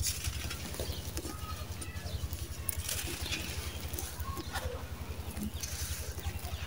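Dry, gritty sand-cement chunks being crushed by hand, with crunching and the hiss of loose sand pouring through the fingers in several bursts, over a steady low hum.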